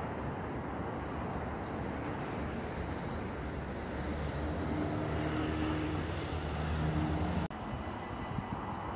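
Road traffic with wind on the microphone; a motor vehicle's engine hum grows louder over a few seconds, then the sound cuts off abruptly and gives way to quieter outdoor background.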